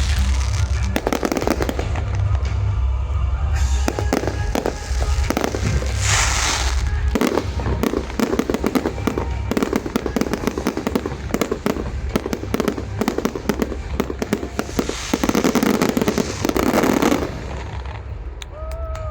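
Fireworks going off in a rapid barrage of bangs and crackling, with music underneath. The barrage stops abruptly about seventeen seconds in.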